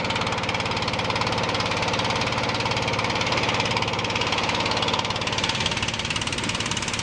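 A boat's engine running steadily, with an even, rapid firing beat.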